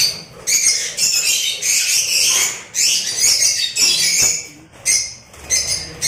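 A roomful of caged lovebirds calling, short high-pitched chirps and squawks repeating over and over.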